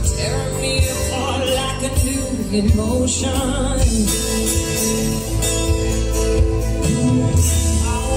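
Live amplified band music with a woman singing the lead vocal into a microphone, loud and continuous.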